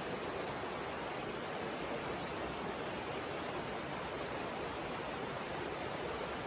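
Waterfall rushing steadily: an even wash of falling water with no change in level.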